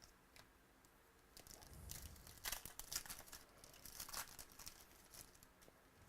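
Faint crinkling and tearing of a foil trading-card pack wrapper being ripped open, in a string of short crisp rustles and clicks lasting about four seconds, loudest partway through.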